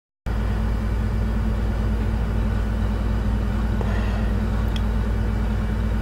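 Steady low rumble with a faint hum, and one faint click about three-quarters of the way through.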